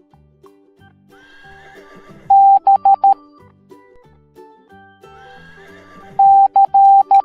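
Morse code beeps: a loud steady tone keyed into a long dash and a few short dots, in two groups about four seconds apart, over background music.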